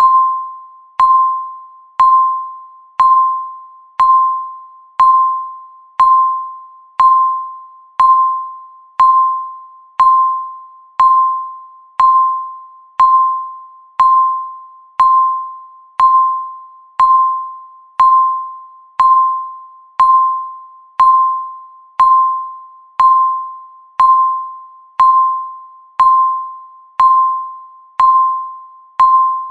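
Countdown timer beep sounding once every second: a single clear tone that starts sharply and fades away before the next one.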